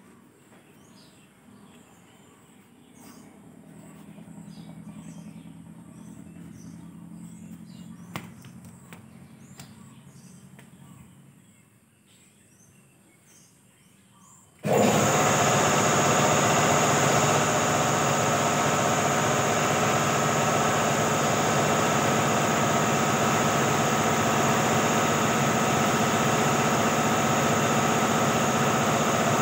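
Faint bird chirps over a low engine hum that swells and fades, then about halfway through a loud, steady motor starts abruptly and keeps running.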